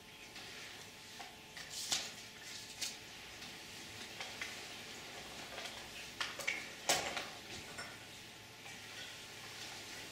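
Faint, scattered light clicks and knocks of small objects being handled, the loudest about seven seconds in, over quiet small-room tone.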